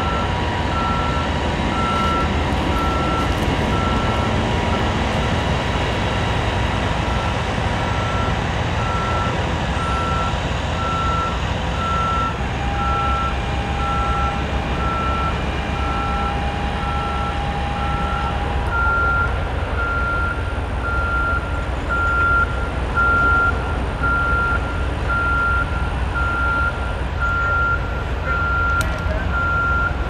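Construction machinery's warning alarm beeping steadily as the track piece is hoisted, over the low rumble of a running engine. About two-thirds of the way through, the beep shifts slightly higher and comes faster.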